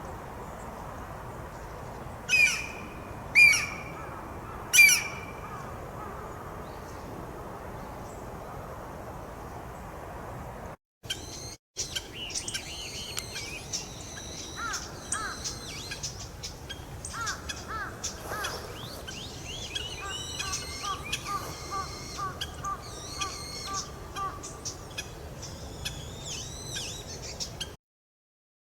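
Wild birds calling: three loud, sharp calls a second or so apart about two to five seconds in. Then, after a break, a busy mix of many short chirps and repeated trilled notes.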